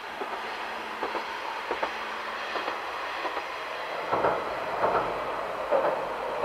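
KiHa 120 diesel railcar drawing near, its running noise steady and loud. From about four seconds in, the wheels clack in pairs over the rail joints.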